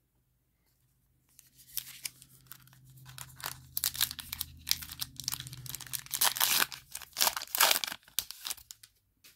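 Foil wrapper of a Topps Heritage baseball card pack being torn open and crinkled by hand, starting about a second and a half in.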